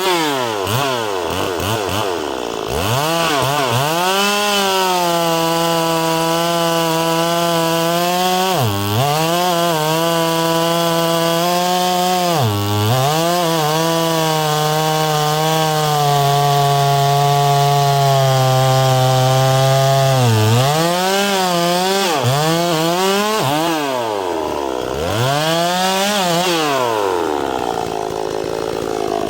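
Small gas chainsaw running at high revs while cutting, its engine speed sagging under load and recovering several times, then surging up and down repeatedly near the end. It is a saw that is not running right, which the owner suspects is a bad carburetor.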